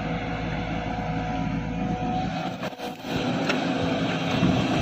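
A JCB crawler excavator's diesel engine running steadily with a steady whine over a low rumble as the machine digs and loads sand, with a brief dip about three seconds in.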